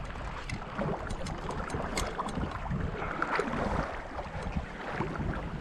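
Wind buffeting the microphone over lapping shallow sea water, with scattered light clicks. One click, about two seconds in, is sharper than the rest.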